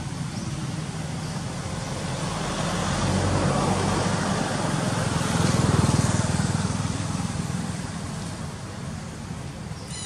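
A motor vehicle passing by: engine and road noise that swells to a peak about six seconds in, then fades.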